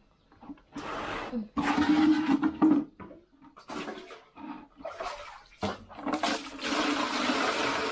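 Water gushing and sloshing in a washing machine tub, in three separate bursts, with a steady low hum under the second one.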